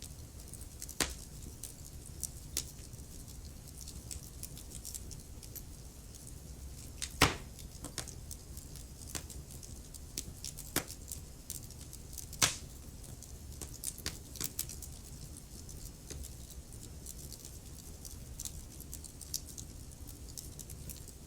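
Wood fire in a fireplace crackling: a steady low rumble under irregular sharp pops and snaps, the two loudest about seven and twelve seconds in.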